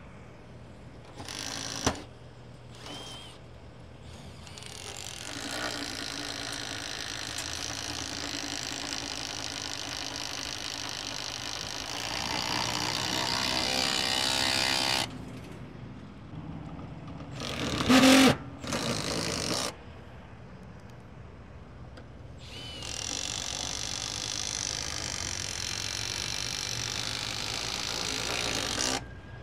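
Handheld power drill running in several runs: short bursts in the first few seconds and just past the middle, and two long runs of several seconds each, the first speeding up toward its end.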